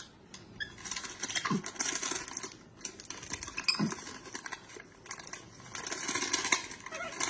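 The paper wrapper of a stick of butter being peeled open and crinkled by hand, a busy crackle of small rustles and clicks.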